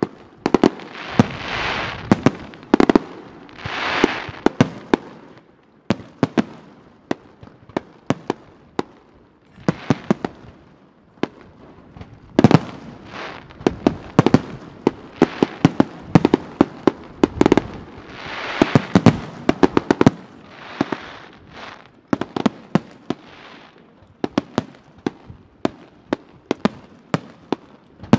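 Aerial fireworks display: a rapid, irregular barrage of sharp shell bursts, many overlapping, with a few swells of crackling hiss lasting about a second each.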